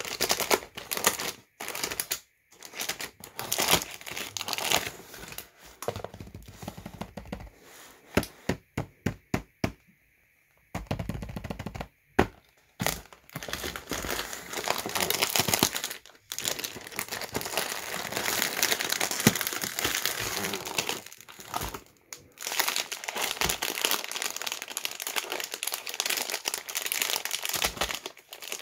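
Crinkly plastic wrappers of individually wrapped pizza-shaped gummy candies rustling and crackling as hands rummage through them and pull them from a cardboard box. A quick run of sharp clicks comes about eight to ten seconds in.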